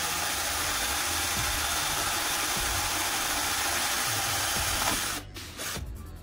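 A power tool running with a steady, loud hiss, stopping abruptly about five seconds in.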